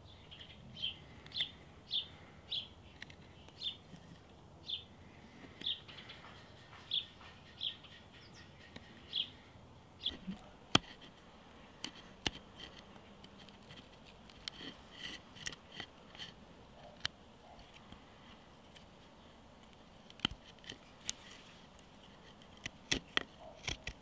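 A bird chirps over and over, about once a second, for the first ten seconds and then more faintly. From about ten seconds in come scattered sharp clicks of a curved-blade carving knife cutting into a wooden handle.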